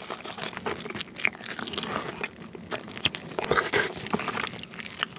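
Biting and chewing a crispy fried chicken wing coated in sticky gochujang sauce (BHC Red King), with many sharp crunches in quick succession.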